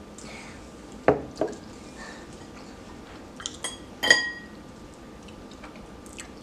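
Tableware clattering during a meal: two dull knocks about a second in, then a few ringing clinks of metal cutlery against ceramic dishes about three and a half to four seconds in.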